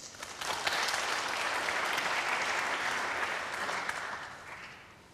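Snooker audience applauding a well-judged safety shot. The applause swells quickly, holds steady, then dies away near the end.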